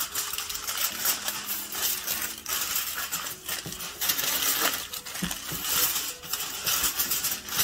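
Aluminium foil crinkling and crackling in dense, irregular bursts as gloved hands fold and press it into a closed pouch.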